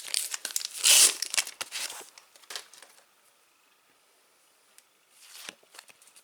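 Foil sticker-pack wrapper crinkling and rustling as it is handled. Two loud crinkles come in the first second and a half and lighter crackles follow until about three seconds in. After a pause there is one more crinkle about five seconds in.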